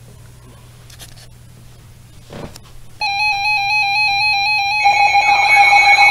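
A faint low hum, then an electronic alert signal starts abruptly about three seconds in: steady pulsing beeping tones, joined a couple of seconds later by more tones and a warbling sweep, like a weather alert radio's alarm.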